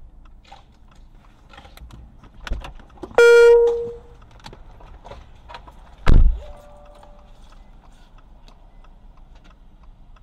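Small clicks and rattles inside a stopped car, with a short loud beep about three seconds in and one heavy thump about six seconds in.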